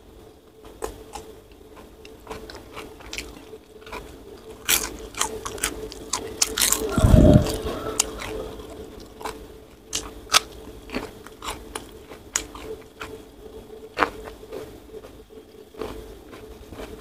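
Close-miked eating sounds: chewing with many sharp crunches of bitten food, and one loud thump about seven seconds in.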